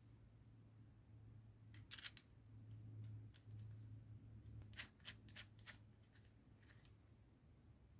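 Faint metal clicks and light scraping as a small steel cap is fitted and turned onto the nose of an old straight grinder: a couple of clicks about two seconds in, then a quick run of four or five about five seconds in, over a low steady hum.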